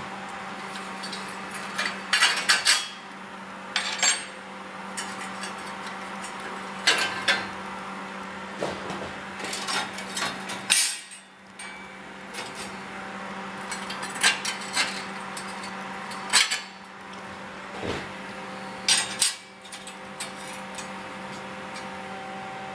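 Short, sharp metallic knocks and clinks from stainless steel sign parts being worked on, about eight of them spread out, over a steady hum.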